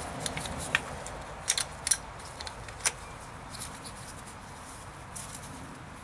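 Scattered light clicks and taps, a few in quick succession about one and a half to two seconds in, from a new speedometer sensor being handled and pushed into its housing by a gloved hand.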